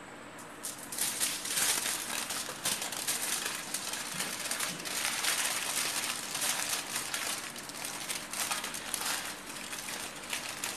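Aluminium foil crinkling and crackling as a sheet of it is rolled by hand around a log of embotido meat mixture, starting about a second in.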